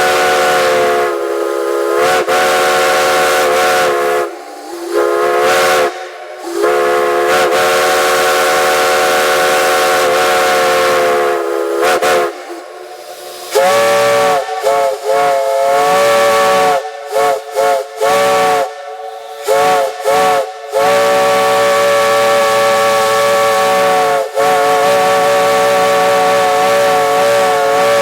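Multi-chime steam whistles blowing. Long held chords are broken by short gaps, each blast sagging in pitch as it opens and closes. About halfway through, a whistle with a different, fuller chord takes over with a string of short, quick toots, then holds one long blast near the end.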